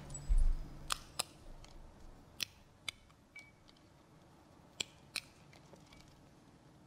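A low thump about half a second in, then sharp clicks and light clinks, mostly in pairs, as the altar vessels are handled at communion.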